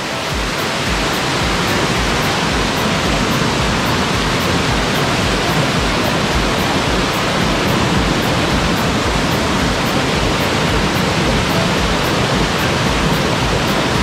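A waterfall's water falling in a loud, steady, even rush.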